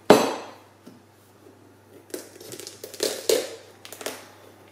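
A knife cutting through a whole orange pumpkin on a chopping board: a sharp loud crack at the start, then a few more shorter cutting sounds about two to three seconds in as the pumpkin is split open.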